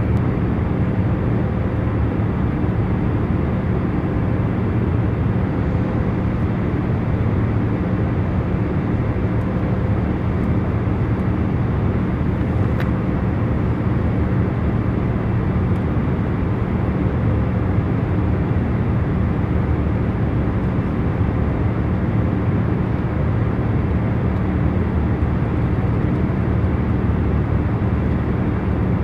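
Jet airliner cabin in cruise flight: a steady hum of engines and rushing air, with a few faint steady drone tones under the noise.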